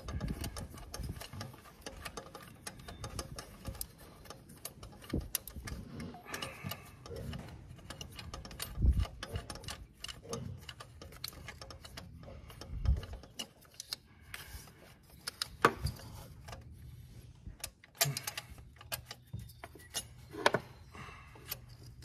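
A socket and long extension unscrewing a long bolt from a metal bracket: irregular light metallic clicks and ticks, with a few louder knocks of metal on metal.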